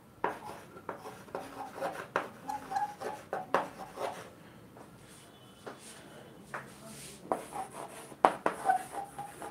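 Chalk writing on a chalkboard: a run of short taps and scratches as letters are formed, with a brief lull around the middle.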